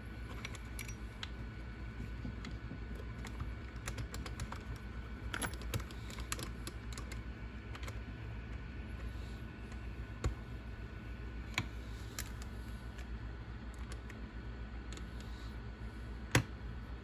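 Scattered light clicks and taps of small parts and tools being handled on a workbench, with a sharper click near the end, over a steady low hum.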